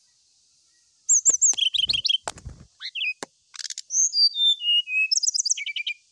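Brown-chested jungle flycatcher singing a loud, varied song: quick repeated high notes, then a run of clear whistles stepping down in pitch, ending in rapid trilled notes.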